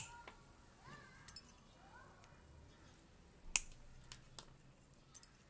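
A few sharp clicks, the loudest about three and a half seconds in, with faint short rising chirps in the first two seconds.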